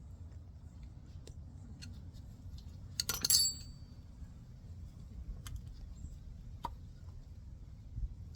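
Metal brake caliper parts and tools being handled, clinking lightly: a sharp cluster of clinks about three seconds in, then a few scattered small clicks.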